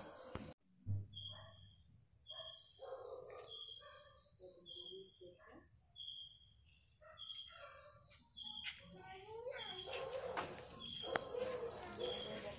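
Night insects calling: a steady high cricket trill, with a second insect chirping regularly about once a second. In the second half there are a few sharp clicks and rustles among the branches.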